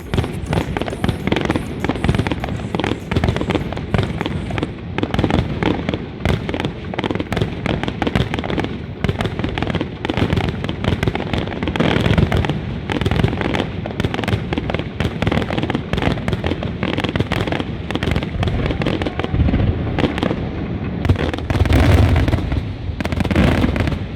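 Fireworks display: a dense, continuous run of cracking bangs and pops, with heavier low booms near the end.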